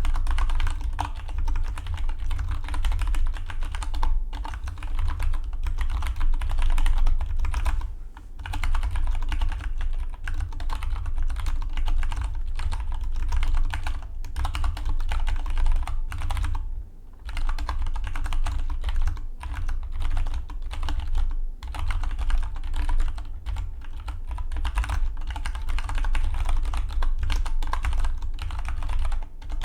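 Fast, continuous typing on a Dygma Defy split mechanical keyboard: a dense stream of key clicks, broken by short pauses about eight and seventeen seconds in.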